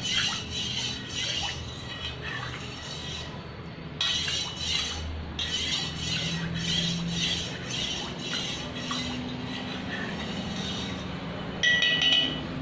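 Steel spoon stirring curd into whey in a stainless steel plate: a steady run of light clinks and scrapes of metal on metal, with a louder ringing clink near the end.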